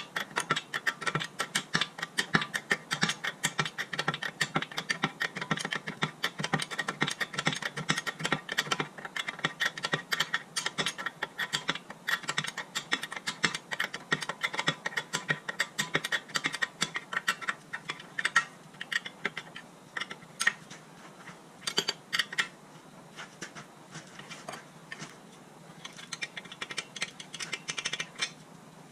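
Hand ratchet clicking as a nut on a car's front suspension is turned, in quick runs of strokes. The clicks are dense for most of the time and grow sparser in the last third.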